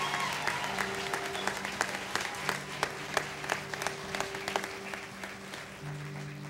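Audience applauding, the clapping thinning out and dying away, over soft held notes of background music.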